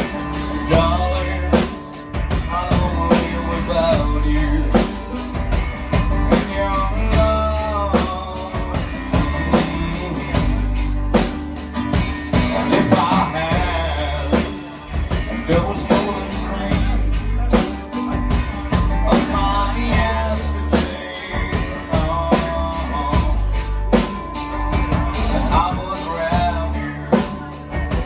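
A live rock band playing a song: acoustic guitar strumming and drums with a steady beat, and a singer's voice over them.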